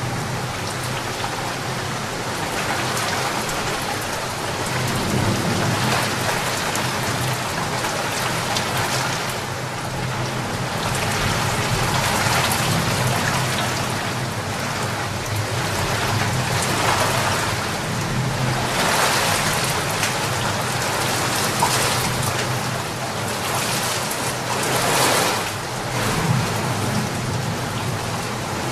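Heavy rain pouring steadily, swelling louder and easing off several times.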